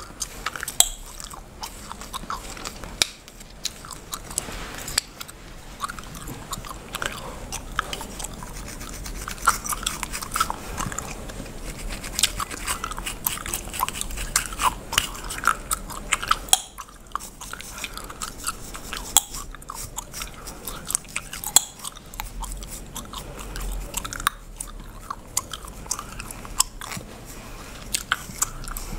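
Bubblegum being chewed and cracked with sharp, irregular pops close to the microphone, mixed with the scratchy rasp of a comb's tail being worked through coily hair on the scalp.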